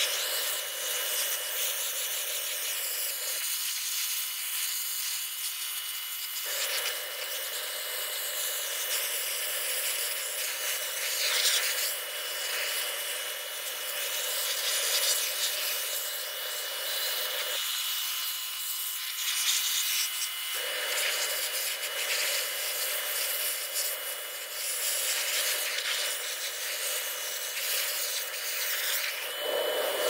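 Hot-water pressure washer jet spraying on a backhoe's steel frame and loader arm, a steady hiss of spray and steam. The lower part of the sound drops out twice, for about three seconds each time.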